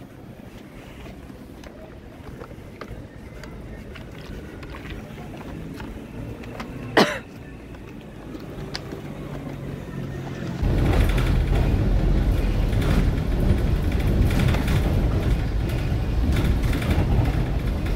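Quiet city street hum with a single sharp, loud sound about seven seconds in. About ten seconds in it gives way suddenly to loud, steady engine rumble inside a city bus.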